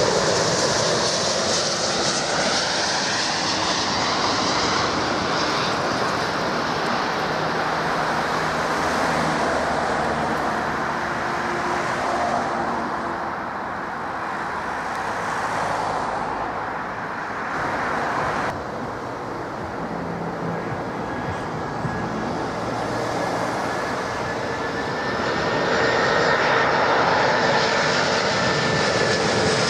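Jet airliner engines on landing approach: a steady roar with a thin whine over it. The roar eases off in the middle and builds again near the end as another airliner comes in.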